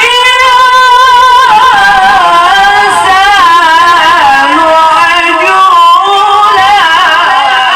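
A male qari reciting the Quran in the melodic tilawah style: long held, heavily ornamented notes with a wavering pitch, sung loudly.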